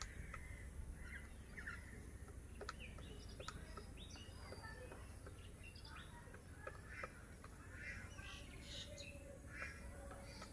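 Faint, irregular taps of a great slaty woodpecker chiselling a nest hole in a tree branch, mixed with scattered chirps and calls of birds.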